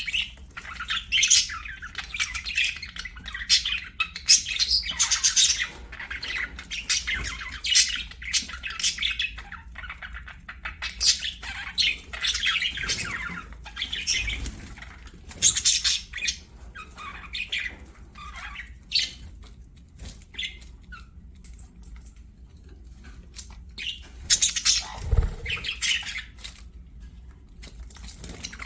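Budgerigars chattering and warbling in a fast run of chirps and squawks, in busy bursts with quieter spells of scattered calls between. A low thump comes near the end.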